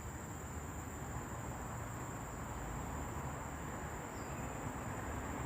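Quiet outdoor ambience: a steady high-pitched insect tone over a low rumble that grows slightly louder toward the end.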